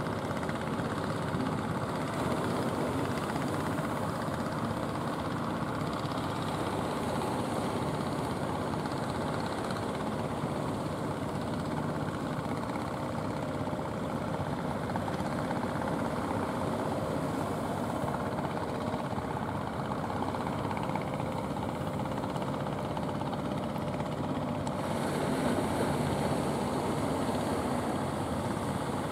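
Outrigger fishing boat's engine running with a steady drone.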